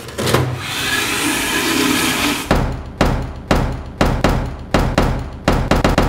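A paper towel being pulled and torn from a wall dispenser, a rustling rush of paper for about two and a half seconds. Then a steady run of sharp knocks and thuds, about two a second and coming faster near the end.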